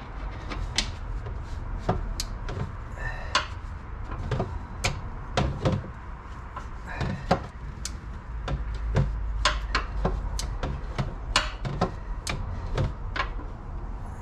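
Irregular sharp metallic clinks and knocks of a hand wrench working a transmission mount bolt in a cramped engine bay, the wrench knocking against bolt and bracket, over a low rumble.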